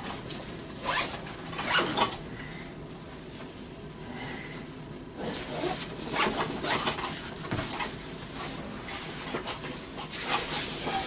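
Rustling and scuffing of a backpack and shoebox being handled, in several short noisy rasps about a second in, around two seconds, a cluster midway and again near the end.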